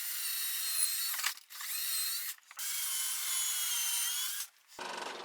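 Power drill driving screws into wood in three runs with brief pauses between them, its high whine wavering in pitch as the load changes.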